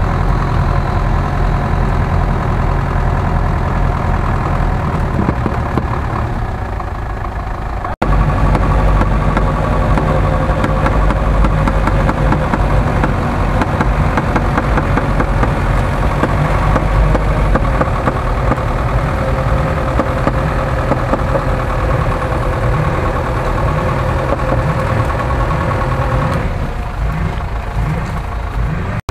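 GAZ-66 truck's engine running at a steady speed, with a brief break about eight seconds in.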